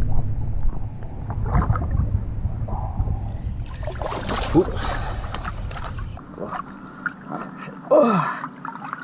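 Water sloshing and lapping around a waterline camera with wind buffeting the microphone, and a burst of splashing about four seconds in as the hooked grass carp thrashes at the surface. A short, falling vocal cry comes near the end.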